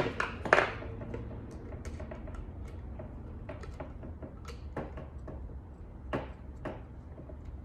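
Scattered small clicks and taps of metal parts being handled while a set screw on the back of a UFO LED shop light is loosened, over a low steady hum.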